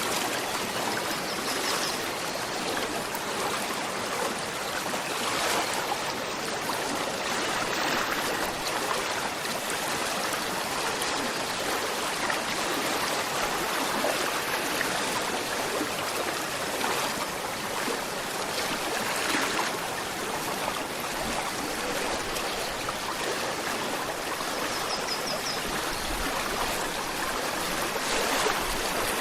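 Gentle river flowing: a steady, even rush and trickle of running water.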